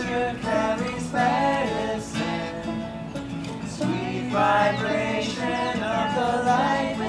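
Acoustic guitar strumming chords while a group of voices sings along.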